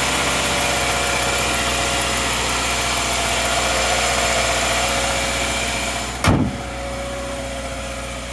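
A Subaru 2.5 L FB flat-four boxer engine idling seconds after a cold start, with the top-end rattle the owner is chasing on thin 0W-20 oil. About six seconds in the hood slams shut with a loud thump, and the engine is heard more muffled after it.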